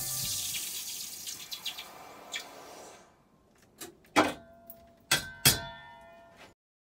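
A hot silver casting quenched in a steel bowl of water: a hiss with fine crackling that fades away over about three seconds, then a few sharp clinks of metal against the bowl as the pliers set the casting down.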